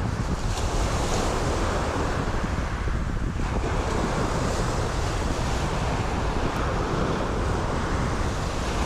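Surf rolling onto the shore with wind buffeting the microphone, a steady rushing noise.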